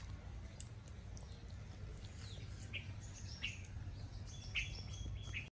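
Birds chirping in the background: short separate chirps that start about two seconds in and come several times, over a steady low outdoor hum.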